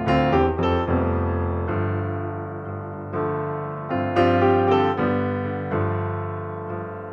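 Background solo piano music: chords and melody notes struck and left to ring and fade, with a new cluster of notes about every second or two.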